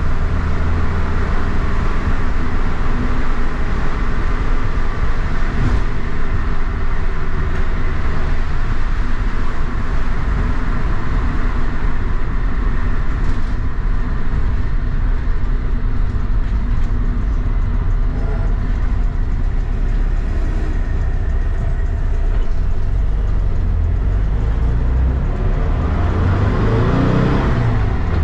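Air-cooled VW Bus flat-four engine, fed by dual Weber 48 IDA carburettors, running steadily while the bus drives, heard from inside the cabin with road noise. The engine note rises near the end as it accelerates.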